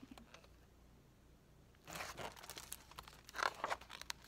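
Paper pages of a picture book rustling as a page is handled and turned: two soft rustles, about two seconds in and again a second and a half later, with a few light clicks.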